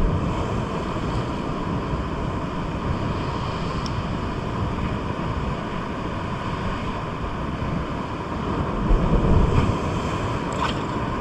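Sea waves washing in steadily, with wind buffeting the microphone in stronger gusts near the end.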